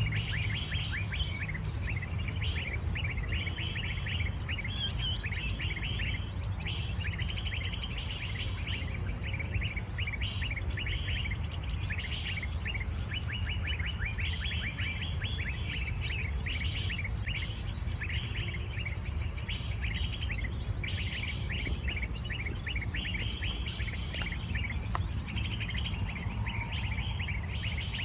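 Small birds chirping in fast, dense runs of short high notes with no pause, over a steady low rumble.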